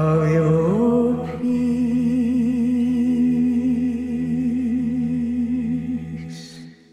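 Music: a wordless sung note held with vibrato, sliding up in pitch about a second in, over a low steady drone, fading out near the end.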